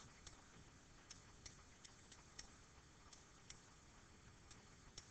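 Near silence broken by faint, irregularly spaced clicks, typical of a stylus tapping and lifting on a touchscreen while handwriting numbers.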